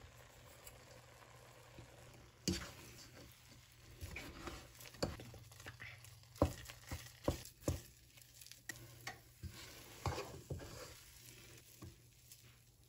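Wooden spatula stirring and mashing thick cooked mung bean paste in a pot, with irregular knocks and scrapes of the spatula against the pot from about two seconds in.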